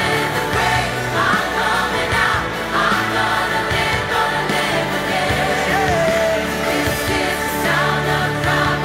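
Live contemporary worship music: a lead vocalist and a choir singing over keyboard and band.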